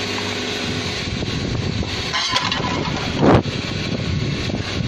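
Hydraulic peanut oil press running with a steady mechanical drone from its pump and motor, broken by a brief loud knock a little over three seconds in.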